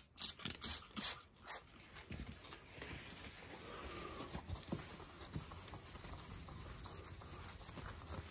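Trigger spray bottle of Goo Gone spritzing onto a fibreglass jet-ski hull: several quick sprays in the first second and a half, then only faint quieter sounds.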